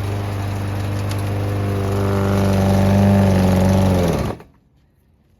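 Garden shredder running steadily, then shut off about four seconds in, its pitch dropping as it winds down to a stop.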